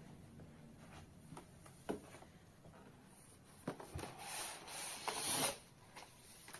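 Hands handling the plastic back casing of a monitor as it is tilted up: a few light knocks, then a louder stretch of rubbing and scraping about four to five and a half seconds in.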